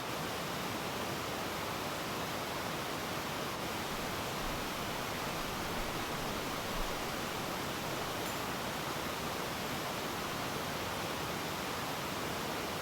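Mountain valley stream running steadily, an even rushing of water with no change.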